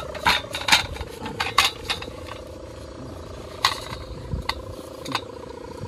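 A steady, even-pitched hum from a flying kite's hummer (sendaren), with irregular sharp metallic clicks from a hand reel of red kite line being worked.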